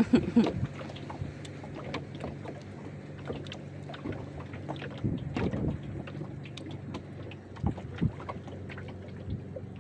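A small river boat with a steady low hum and wind on the microphone, while a fishing setline is hauled in by hand over the bow. Scattered light clicks and taps come through, with a few louder knocks about five and eight seconds in.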